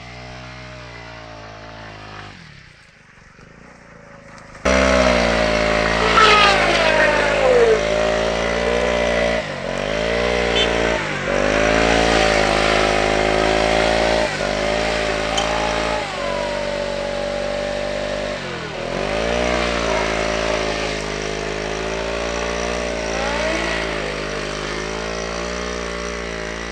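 Honda CRF450 dirt bike's four-stroke single-cylinder engine, quieter at first, then loud from about five seconds in, held at high revs with several brief drops in pitch as the mud-buried rear wheel spins and bites: the bike is stuck in a bog.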